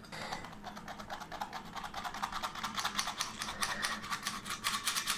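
Hand-operated stainless steel flour sifter being worked over a bowl: its wires scraping flour through the mesh in a rapid, even run of rasping clicks, several a second, getting louder in the second half.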